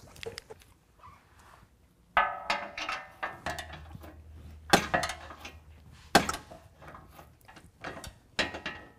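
Steel hand wrenches clanking and clinking against the bolts and the steel bull-bar bracket while the bolts are tightened. There are a few sharp metallic knocks, some with a brief ring, and light clicks between them.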